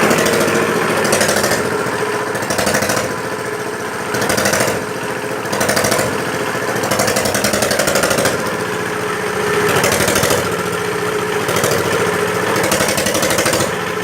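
Arc welding off a homemade salt-water welding machine: a steady harsh buzz, with several short bursts of hissing crackle as the arc strikes and burns.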